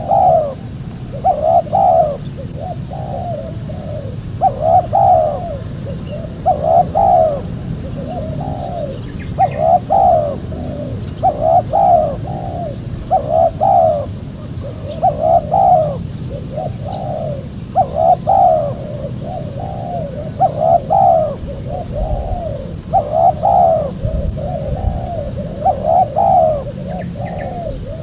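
Spotted dove (tekukur) cooing over and over, in short throaty phrases repeating about every second or so, over a steady low rumble.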